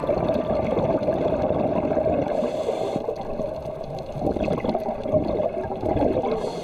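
Underwater bubbling and gurgling, a dense irregular crackle that eases off briefly in the middle and picks up again.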